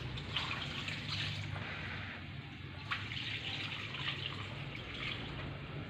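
Water pouring into a cooking pot of chicken, a steady splashing run, with a sharp click about three seconds in.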